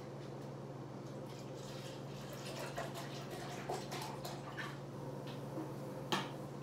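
Faint scattered clicks and light taps over a steady low hum, with one sharper click near the end.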